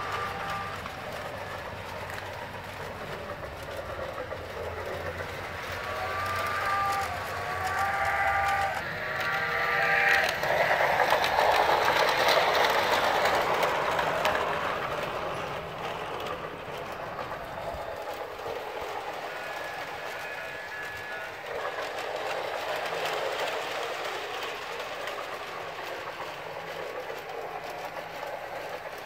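Inexpensive battery-powered New Bright G-gauge toy train running on its track, with a wavering whistle-like sound about a quarter of the way in, then a louder rushing swell that fades over several seconds.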